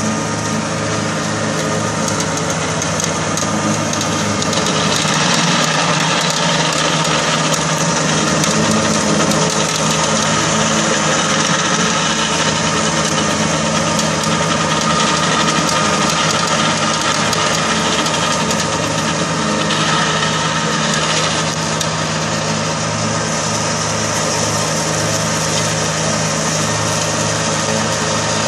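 Kubota compact tractor's diesel engine running steadily under load, driving a rear-mounted rotary mower through tall grass and brush.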